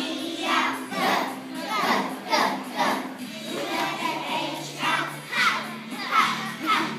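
A group of young children singing a song together, with musical accompaniment under their voices.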